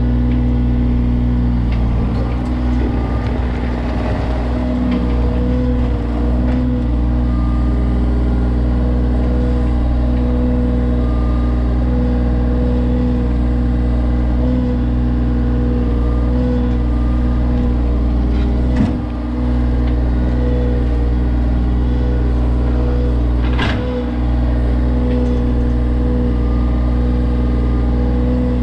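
John Deere 35G mini excavator's diesel engine running steadily at working speed. Two sharp knocks come in the second half, about five seconds apart.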